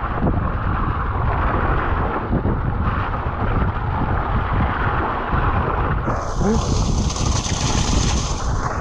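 Wind buffeting the microphone of a mountain bike's onboard action camera, mixed with the tyres rolling and rattling over a wet, gravelly trail. A higher hiss rises over it about six seconds in and lasts around two seconds.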